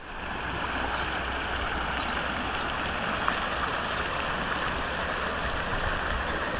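Steady rushing of a fast mountain river.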